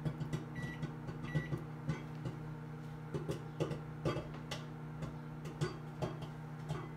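Microwave oven running with a steady hum while popcorn pops inside in scattered, irregular pops, about one or two a second: the kernels have only just started popping. Two short keypad beeps sound in the first second and a half as another minute is added to the timer.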